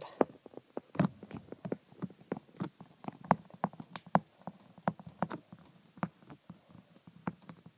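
Stylus tapping and scraping on a tablet screen during handwriting: a run of small, irregular taps, several a second.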